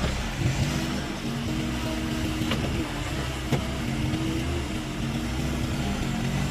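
Engine of heavy earth-moving equipment running steadily at work, with two sharp knocks about a second apart near the middle.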